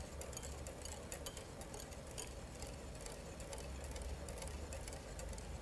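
Wire whisk clicking and scraping lightly against a metal bowl, fast and irregular, while stirring egg whites and sugar over a bain-marie to dissolve the sugar. A faint low hum runs underneath.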